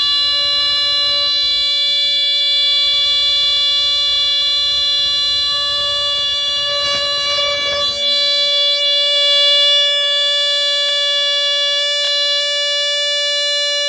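A vintage 1960s Vigilante No. 997 battery-powered burglar and fire alarm's horn, sounding one loud, continuous, high-pitched buzzing tone after its trigger pin is pulled out. Handling rustle runs underneath for about the first half, then stops.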